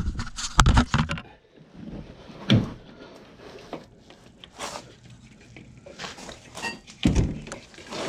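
Scattered thunks and clatters of tools and parts being handled and set down, the loudest about 2.5 s in and again near the end.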